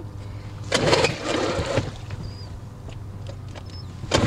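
A 2003 Mercury 3.3 hp two-stroke outboard running steadily just after being pull-started, in gear and pushing the dinghy. A louder rushing noise comes about a second in and again at the very end.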